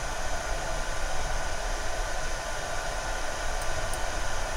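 Steady fan noise: an even rushing hiss over a low hum.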